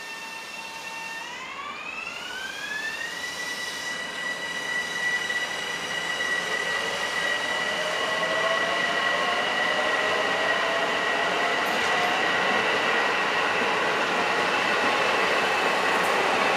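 Metro-North M7A electric multiple-unit train passing close by, its electric traction motors giving a high whine. The whine climbs in pitch over a couple of seconds near the start and then holds steady. A second, lower tone rises slowly in the middle, and the whole sound grows louder as the cars come alongside.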